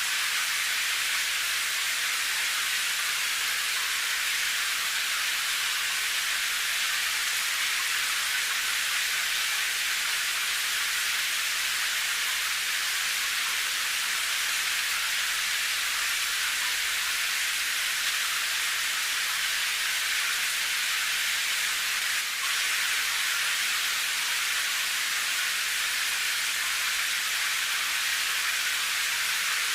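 Steady rain sound: a dense, even hiss of falling rain, high and bright with almost no low rumble. It has one momentary dip about two-thirds of the way through.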